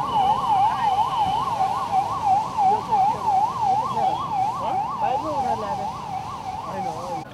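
Police van's electronic siren in a fast warble, its pitch swinging up and down about three times a second, growing fainter as the van drives away.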